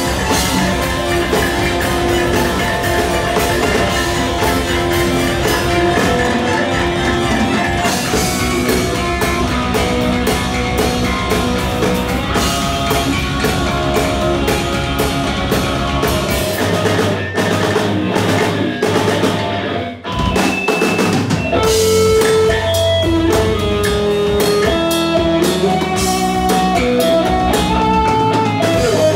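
Rock band playing, with drum kit and electric guitar. The music drops out briefly about two-thirds of the way in, then the full band comes back with a stepping melodic line on top.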